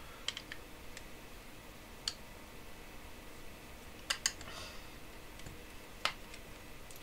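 Small, sharp clicks and taps of a thin metal pick working the plastic clips of an IPL hair-removal device's lens cover, scattered irregularly with a quick double click about four seconds in: the hooks being prised free to release the lens.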